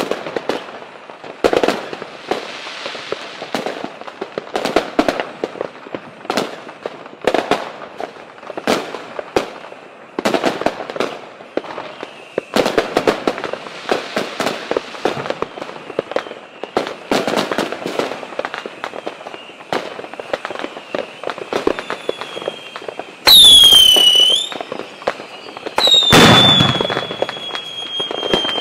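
Fireworks going off: a steady run of sharp bangs and crackling. Near the end come the loudest moments, a short falling whistle and then a bang followed by a long, slowly falling whistle, as from whistling rockets.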